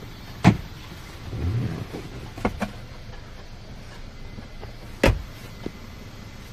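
Handling noises inside a Kia K3's cabin: a few sharp knocks and clicks of plastic interior trim, the loudest about half a second in and again about five seconds in, with a short rustle at about a second and a half.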